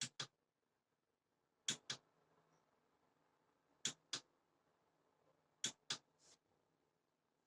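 Click-type 1/4-inch torque wrench releasing at its set torque, four times about two seconds apart, each a sharp double click that signals the set torque has been reached.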